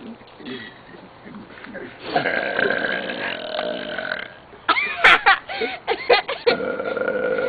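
Deliberate, forced human burps: a long, drawn-out burp lasting about two seconds starts about two seconds in, and another steady burp begins near the end.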